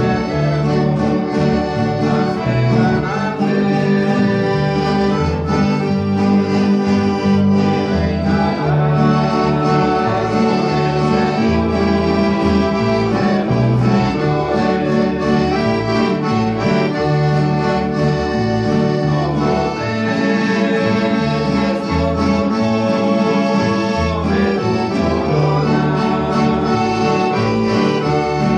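Live ensemble music led by a piano accordion, with acoustic guitars and an electric guitar playing along.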